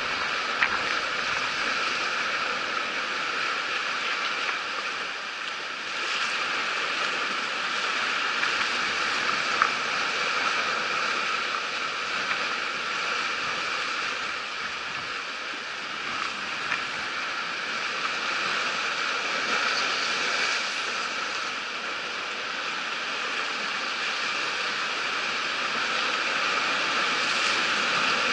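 Sea waves washing and breaking against a rocky shoreline: a steady rushing hiss of surf that swells and eases slightly.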